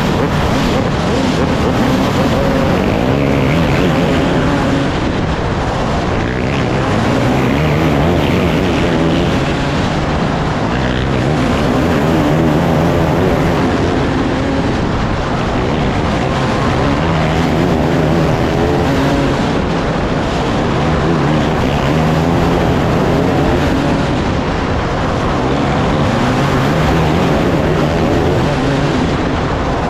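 Racing engines of a field of race cars running hard, their pitch rising and falling and the loudness swelling and easing every few seconds as the cars pass.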